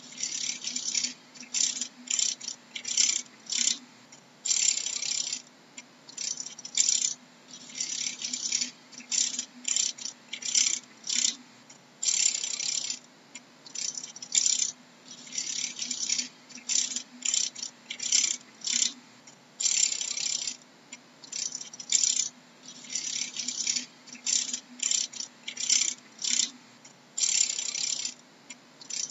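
Dragonfly wings rattling in short, irregular bursts, a dry high-pitched clatter about once or twice a second, over a faint low hum.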